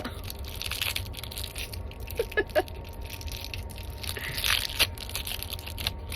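Steady low rumble of a moving vehicle. Over it come a person's short breathy noises and clicks, with two brief small voiced sounds about two seconds in.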